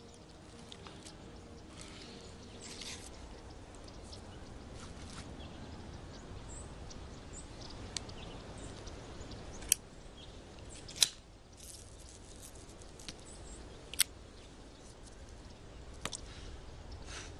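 Low steady outdoor ambience broken by a handful of sharp clicks as a cigarette lighter is worked to light a cigarette. The loudest click comes about eleven seconds in.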